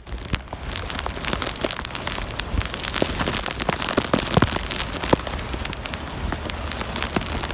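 Rain falling steadily, an even hiss with many sharp ticks of individual drops.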